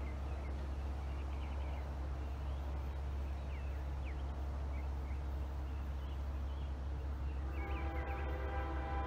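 Birds chirping over a steady low rumble. Near the end, a distant locomotive horn, that of CSX 5408, a GE ES40DC, starts sounding a steady chord as the inspection train approaches.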